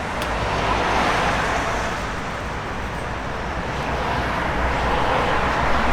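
Road traffic: a steady rumble of passing vehicles that swells about a second in and again near the end.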